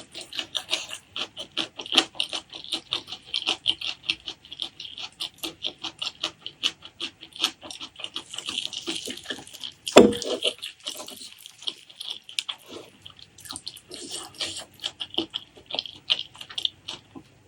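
Close-miked chewing of spicy pork leg curry and rice: rapid wet mouth clicks and smacks, several a second. One louder knock about ten seconds in.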